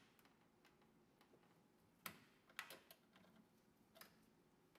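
Near silence broken by a few faint clicks of a 10 mm socket on the nuts of the lower dashboard trim panel as they are loosened: one about two seconds in, a few more over the next second, and another near the end.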